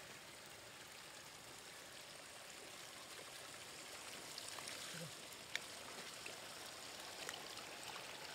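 Shallow floodwater running over gravel and stones, a steady faint trickling, with a few small clicks and splashes.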